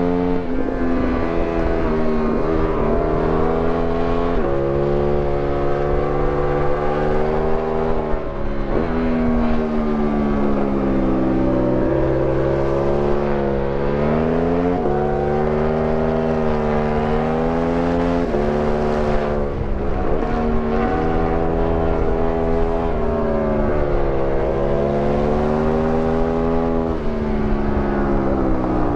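Aprilia Tuono 1000R's 60-degree V-twin engine, heard from on board as it is ridden hard through bends. The revs climb and then drop suddenly again and again with throttle and gear changes, over a steady rush of wind.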